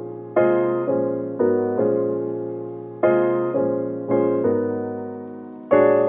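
Background piano music: slow chords, each struck and left to fade before the next.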